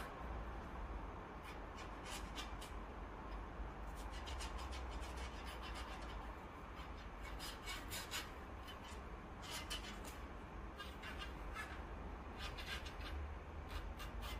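Faint, irregular clicking and scraping of wooden chopsticks working grease onto a 3D printer's Z-axis lead screw, in short clusters, over a low steady hum.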